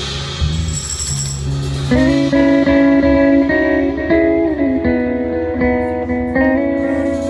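Live band playing an instrumental passage: bass and drums first, then an electric guitar line of single picked notes comes in about two seconds in.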